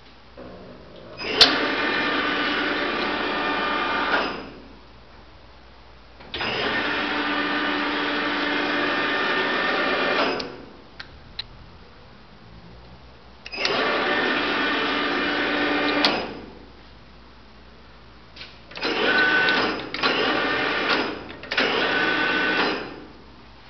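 Benchtop metal lathe, driven through a frequency inverter, running in five spells of two to four seconds each: a steady mechanical whirring with a whine in it, separated by quieter pauses. Each spell starts sharply and tails off; a sharp click marks the start of the first.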